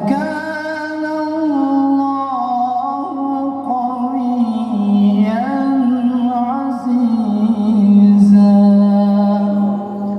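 A male qari reciting the Quran in the melodic tilawah style: one long drawn-out phrase of held, ornamented notes that rises and falls, breaking off just before the end.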